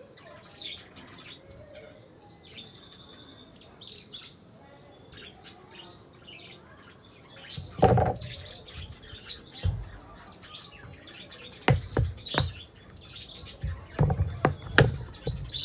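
Small birds chirping and tweeting repeatedly in short high calls. Several dull thumps or knocks cut in about halfway and again near the end, louder than the birdsong.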